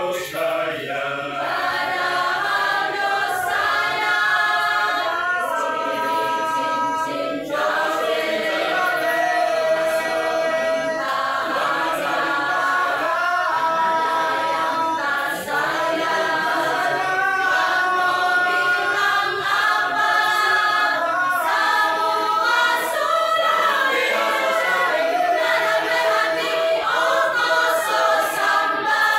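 Masamper choir of men's and women's voices singing unaccompanied in harmony, moving through long held chords.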